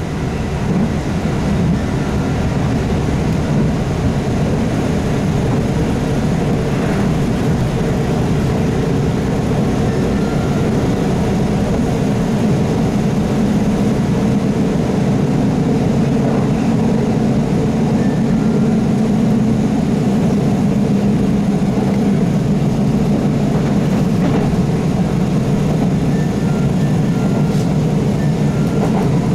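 KiHa 75 diesel railcar under way, heard from inside the car: steady hum of its Cummins diesel engine mixed with continuous wheel and rail running noise.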